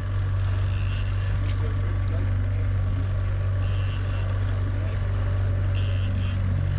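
Boat engine running under way, a steady low drone. Over it, a high-pitched chirping comes and goes in short stretches.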